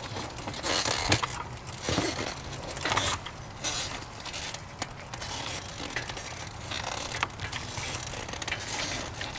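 Loose rattling and clattering from riding along a paved street, with irregular knocks over a steady low wind rumble on the microphone.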